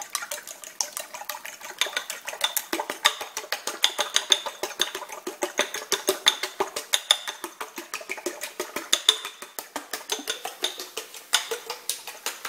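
Eggs being beaten with a fork in a bowl, the fork clicking rapidly and evenly against the bowl's side, several strokes a second.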